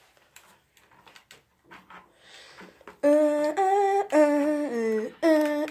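A girl humming a short tune in a few long held notes, starting about three seconds in. Before that, faint rustles and clicks of cardboard and plastic packaging being handled.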